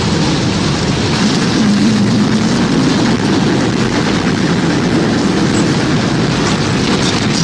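Tornado wind sound effect: a steady, loud rush of noise, strongest in the low end.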